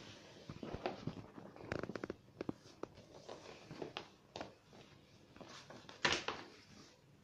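Large sheet of paper rustling and crinkling as it is folded over and creased by hand, in short scattered strokes, with a louder rustle about six seconds in.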